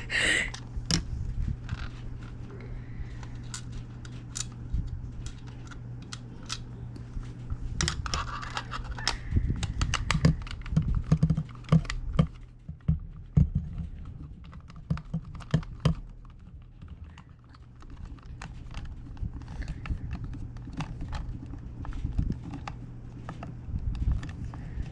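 Small screws being driven back into a plastic game controller's shell with a hand screwdriver: irregular clicks, ticks and light knocks of the tool and the plastic parts being handled, over a steady low hum.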